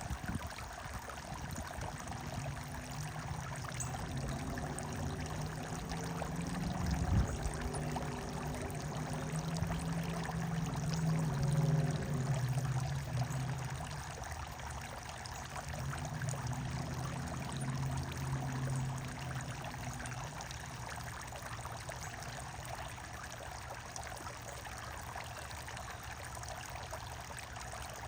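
Running water trickling and pouring steadily. A low hum rises and fades under it for much of the first two-thirds.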